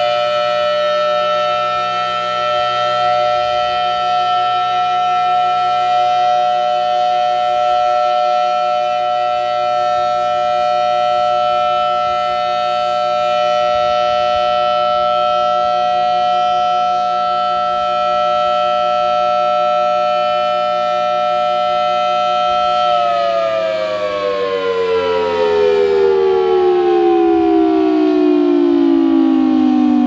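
Federal Signal Thunderbolt 1000T outdoor warning siren sounding a loud, steady tone at an even volume: its rotator is broken, so the horn stays fixed and does not sweep. About three-quarters of the way through it winds down, its pitch falling steadily.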